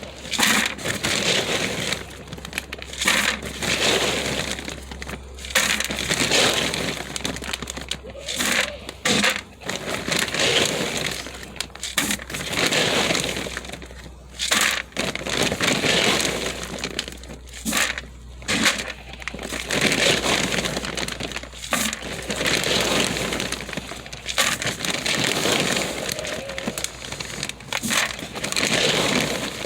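Dry goat feed pellets being scooped and handled: a continuous, irregular crunching and rattling with brief pauses.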